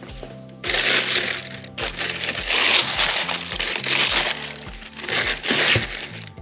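Black tissue paper crinkling and crackling loudly in bursts as hands fold it over a sandal in its box, over background music with a steady beat.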